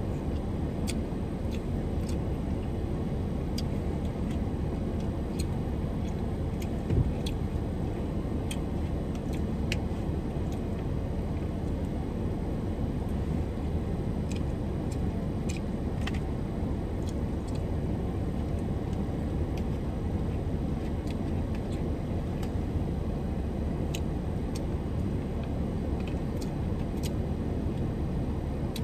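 Car engine idling, a steady low rumble heard inside the parked car's cabin. Faint scattered clicks and one louder knock about seven seconds in.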